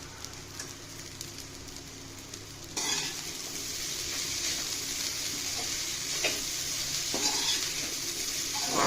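Ragi vermicelli stir-frying in a pan with onions and coconut: a spatula stirring and scraping against the pan over a steady sizzle. The sizzle gets suddenly louder about three seconds in, with a few sharper scrapes after it.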